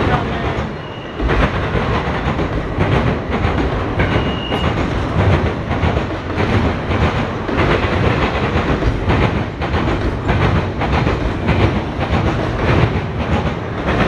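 Norfolk Southern double-stack intermodal train rolling past: a steady rumble of steel wheels on rail with repeated clicking as the wheels cross the rail joints.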